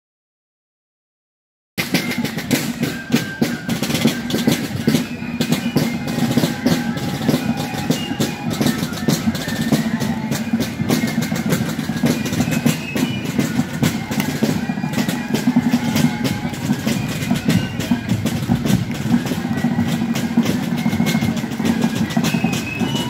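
After about two seconds of silence, a fife and drum corps plays as it marches: rapid rattling field drums and a booming bass drum, with fife melody above.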